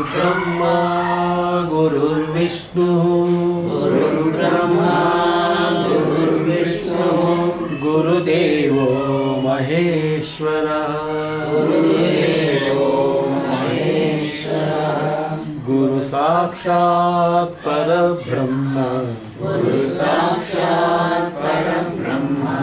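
A man chanting Sanskrit verses in a steady, melodic recitation: phrases of a few seconds with held notes, broken by short pauses for breath.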